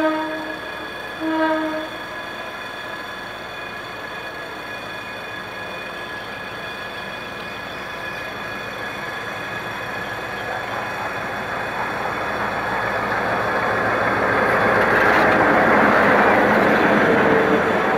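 A GM G22W two-stroke diesel locomotive sounds two short horn blasts, the first already under way at the start. It then runs closer with its passenger coaches, the engine and wheel noise growing steadily louder until it passes close by near the end.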